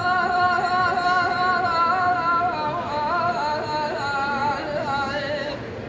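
A male dengbêj singing a Kurdish kilam unaccompanied, holding one long note and then moving into a wavering, ornamented line that fades near the end.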